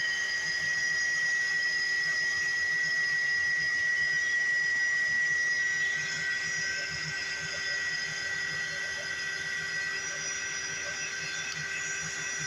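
Electric heat gun running steadily: a fan whine over a hiss of blown air, shrinking heat-shrink tubing over a crimped cable lug. It drops slightly in level about six seconds in.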